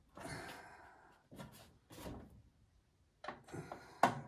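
Steel tool-cabinet drawer being worked by hand while its mounting bolts are tightened with a screwdriver: a scraping rub for about a second, then scattered sharp clicks and knocks, the loudest near the end.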